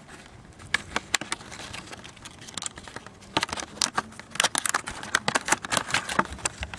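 Stiff plastic wiper-blade packaging crackling and clicking as it is handled and pried open by hand, in a run of irregular clicks that get busier about halfway through.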